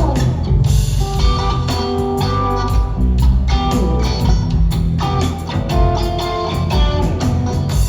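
Live rock trio playing an instrumental jam: electric guitar over bass guitar and drum kit, recorded on a phone in the audience.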